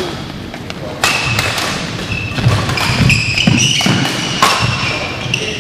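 Badminton doubles rally on an indoor court: several sharp racket hits on the shuttlecock, heavy footfalls, and short high squeaks of court shoes as the players lunge and turn.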